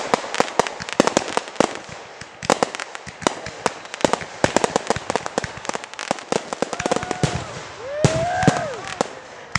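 Aerial fireworks going off: a dense run of sharp crackles and pops from bursting shells and cakes. Near the end comes a short tone that rises and then falls.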